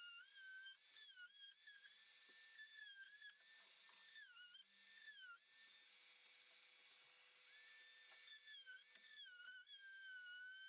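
Faint, high whistling tone that holds notes and slides between them, with short breaks, like a whistled or synth melody.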